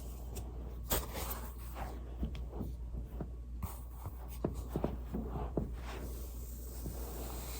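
Foam rolling: soft rubbing and shuffling of a body on a foam roller, with a handful of small scattered clicks and knocks over a steady low hum.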